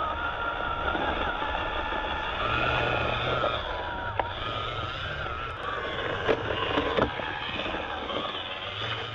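Axial SCX24 micro RC crawler driving over rock: its small electric motor and gearbox whine, rising and falling in pitch with the throttle, with a few sharp knocks as the chassis and tyres strike the rock, about four seconds in and twice between six and seven seconds.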